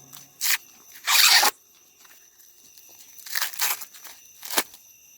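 Dry corn husks and leaves tearing and rustling in several short bursts. The loudest, about a second in, lasts half a second, and a sharp snap comes near the end.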